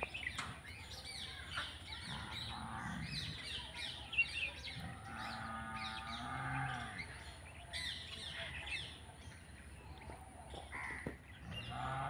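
Several birds chirping and calling, short calls overlapping one another throughout.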